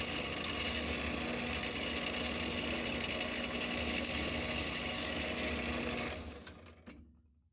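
Drilling machine spindle running steadily with a hum and a high whine as a number 25 drill bores a tap-drill hole for a 10-24 thread; about six seconds in the motor is switched off and the spindle spins down to a stop.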